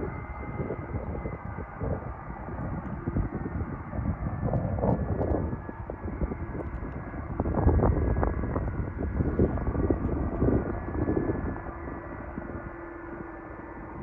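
Boeing 747-400 freighter's four jet engines running as it taxis: a continuous rough rumble with faint steady tones above it. It swells for a few seconds about halfway through, and a steadier hum comes in near the end.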